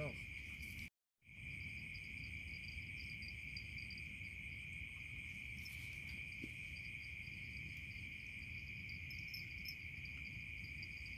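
Steady night chorus of crickets and other insects: a continuous high trill, with a faster pulsing chirp above it and low noise underneath. The sound cuts out completely for a moment about a second in.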